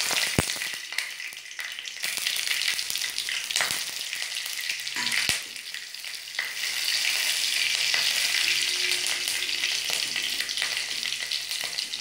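Nigella seeds and a slit green chilli sizzling and crackling in hot mustard oil: the tempering frying, with a few sharp pops.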